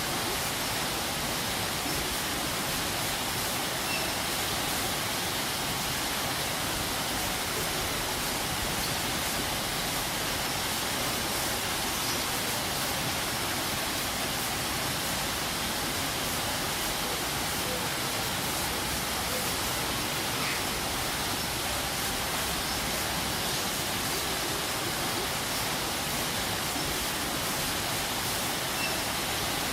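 Waterfall: falling water making a steady, even rush with no change.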